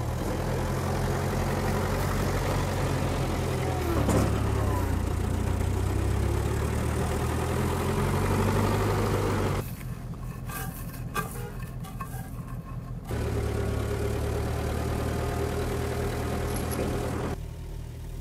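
A heavy engine running steadily at idle with a low hum. For a few seconds past the middle it falls back behind light knocks and clicks of hand work on a metal oven stand.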